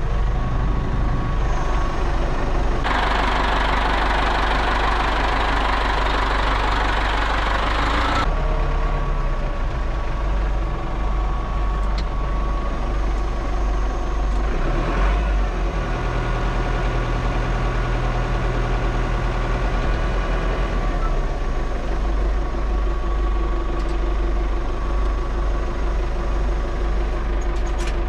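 Ford 5600 tractor's three-cylinder diesel engine running steadily at low revs, heard from inside the cab. A broad rushing noise rises over it for about five seconds near the start.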